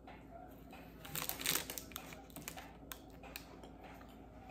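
Faint handling of snack packaging: a short crinkling rustle about a second in, then a few light clicks.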